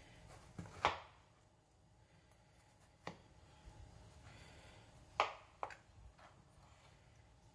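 Kitchen knife cutting through a winter melon on a plastic cutting board: two sharp knocks, about a second in and about five seconds in, with a few lighter knocks between and after.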